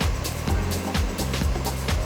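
Background music with a steady, quick beat and a bass line.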